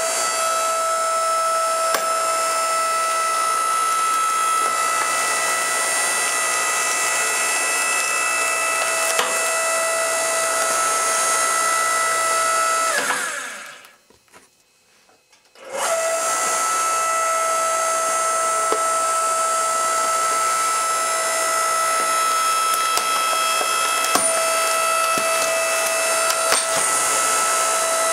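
Log splitter running under load, its motor and pump giving a steady whine as the ram forces a leather boot against the steel wedge. It stops about 13 seconds in and starts again about two seconds later.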